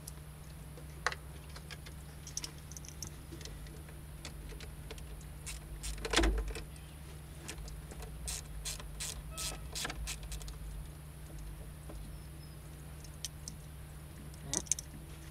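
Scattered light clicks and rattles of a hand tool on screws and plastic trim at the top of a car's radiator, with one louder knock about six seconds in. A steady low hum runs underneath.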